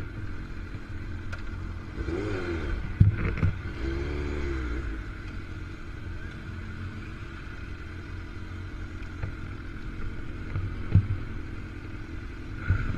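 Sport motorcycle riding at speed, heard from the bike: a steady engine drone mixed with rushing wind. The engine pitch swells and drops a couple of times between about two and five seconds in, and a few sharp knocks stand out, the loudest about three and eleven seconds in.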